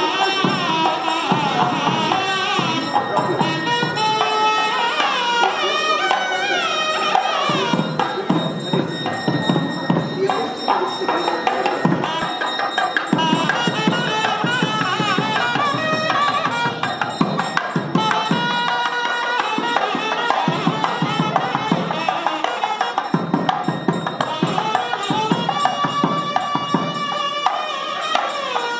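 South Indian temple procession music: a nadaswaram double-reed pipe plays a winding, heavily ornamented melody over fast strokes on a thavil barrel drum. The music announces a Hindu deity being paraded around the temple.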